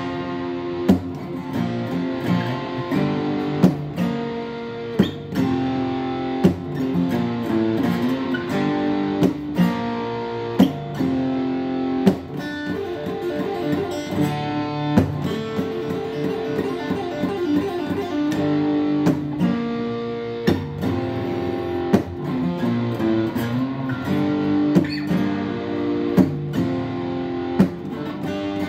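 Acoustic guitar played solo: picked single notes and chords, with sharp accented plucks at irregular intervals.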